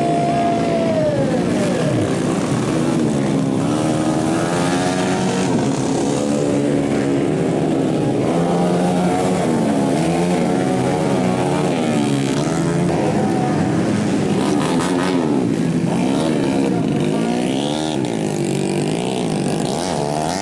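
Small motocross bike engines revving hard and easing off as the riders race past. Their pitch rises and falls continually, and several engines overlap.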